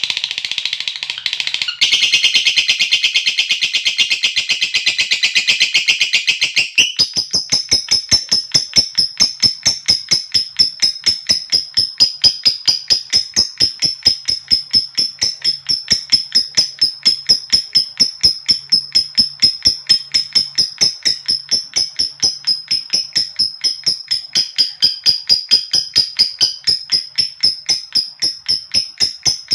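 Lovebird giving its long 'ngekek' chatter: a rapid, evenly paced string of sharp notes kept up without a break, denser and rougher at first and settling into a steadier, higher pulsed series about seven seconds in.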